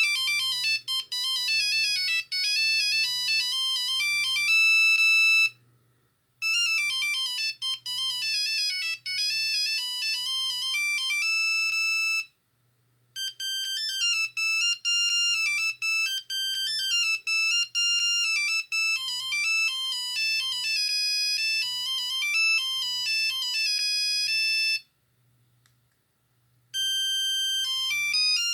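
Nokia 6310i monophonic ringtones: bright beeping melodies played one after another. Each plays for several seconds and stops abruptly, with a pause of a second or two before the next starts.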